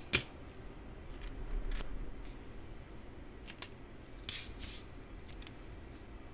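Quiet hand-handling of crocheted yarn and wire: a sharp click just after the start, then soft rustles and a few small clicks.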